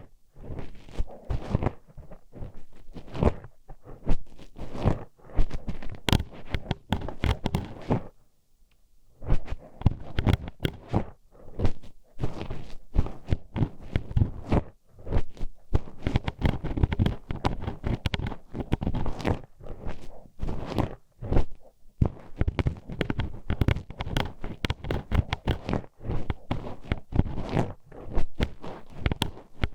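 Metal hairpin poked and scraped inside the ear of a binaural ASMR microphone: close, rapid, irregular clicking, tapping and scratching. There is a brief pause about eight seconds in.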